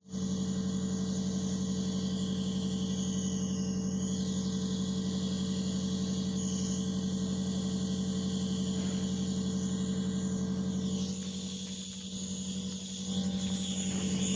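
Steady droning hum of a moving vehicle's engine. It eases a little about eleven seconds in, then picks up again near the end.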